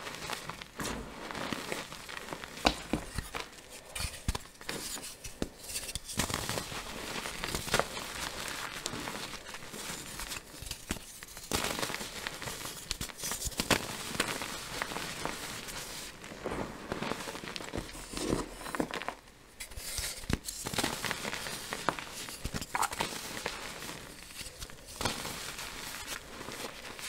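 Dyed gym chalk chunks being crushed and crumbled by hand into powder: steady dry crunching and crackling with many small sharp snaps as the blocks break apart, easing off briefly a little past two-thirds of the way through.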